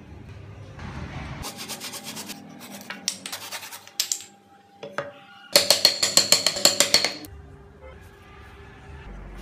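A frame hand saw cutting into a wooden block in quick back-and-forth strokes, in two runs of about two seconds each; the second run is the louder.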